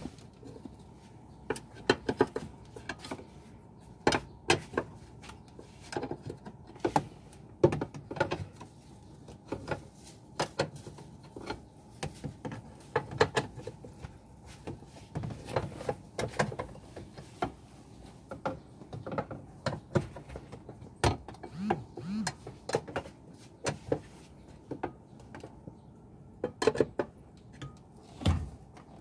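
Scattered, irregular clicks, taps and light knocks of screwdrivers and plastic trim being handled in a car's centre console around the gear shifter assembly.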